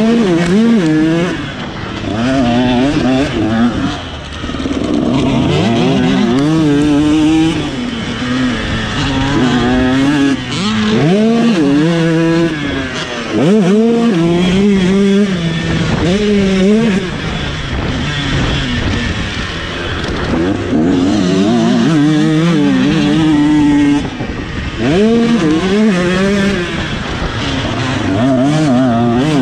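Motocross bike engine heard from on board, revving hard: its pitch climbs and falls over and over as the rider accelerates, shifts and rolls off the throttle.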